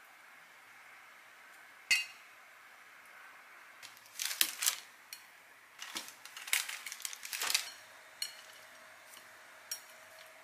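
Metal chopsticks clicking and clinking against a ceramic plate and pan while food is laid out: one sharp clink about two seconds in, a run of clatter through the middle, and a few light taps near the end.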